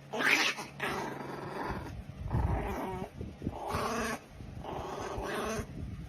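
A dog vocalizing in a series of about five drawn-out, pitched calls with short pauses between them.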